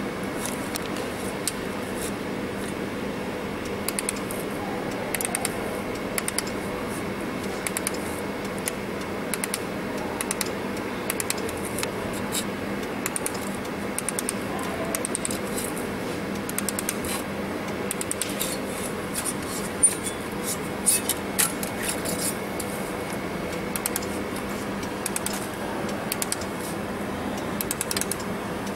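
Pulsed laser welder spot-tacking a stainless steel channel-letter strip to its face plate: irregular sharp ticks from the laser pulses over a steady hum, with a busier, louder run of ticks about twenty seconds in.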